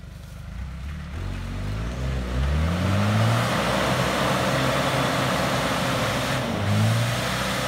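Off-road 4x4 SUV engine revving up as the vehicle drives closer through dense undergrowth. The engine note climbs over the first few seconds, then holds high under a steady rushing noise, with a brief dip in revs near the end.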